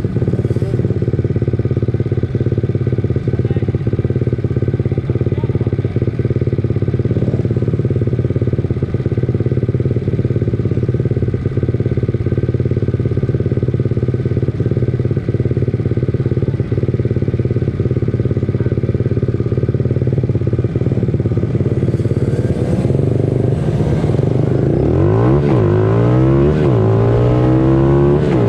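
Several 90 cc pit bike engines running in a steady drone, then revving up and down with sweeping rises and falls in pitch from about two-thirds of the way through.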